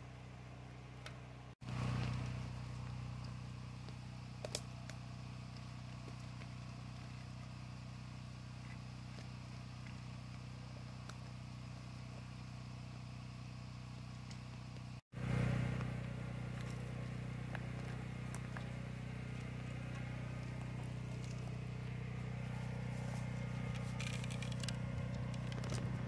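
An engine running steadily with a low, even hum. It cuts out for an instant twice, and a few faint clicks are heard over it.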